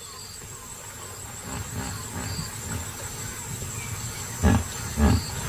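Hippopotamuses grunting, with low bending calls building up and two short, louder grunts near the end.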